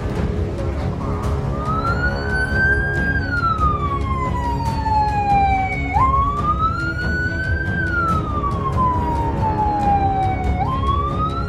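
Ambulance siren wailing: a tone that climbs, then falls slowly before jumping back up, repeating about every four and a half seconds, starting about a second and a half in. Background music plays underneath.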